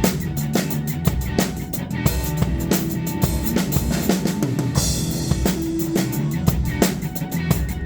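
Drum kit playing a fast, steady beat of kick, snare and rim hits inside a band's music, with a cymbal crash about five seconds in.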